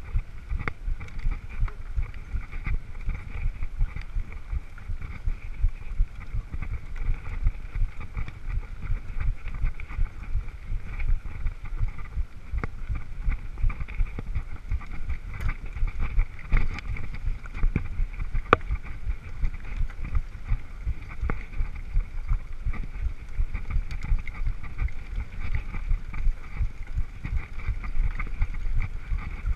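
Wind buffeting the microphone of a bike-mounted action camera over the rattle and tyre rumble of a mountain bike riding a bumpy dirt trail, with a few sharp clicks and knocks from the bike.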